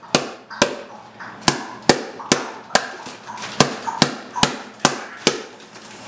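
Wooden spoon beating on the rubber cover over a pomegranate half turned face-down in a plastic deseeding bowl, knocking the seeds loose: a steady run of sharp knocks, about two a second.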